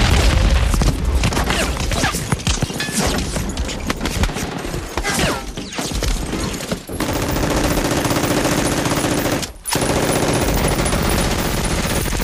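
A rapid, dense series of sharp shots for about the first seven seconds, then a steadier sound carrying a held tone underneath.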